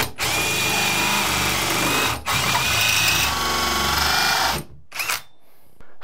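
Cordless drill turning a dull 2 1/8-inch hole saw through a steel door skin: a steady grinding whir with a thin whine. It drops out briefly about two seconds in, stops about four and a half seconds in, and gives one short burst just after.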